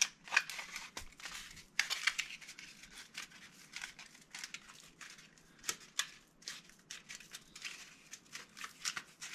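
Laser-cut cardboard being bent, creased and pressed together by hand: irregular crinkling and crackling with many short sharp snaps.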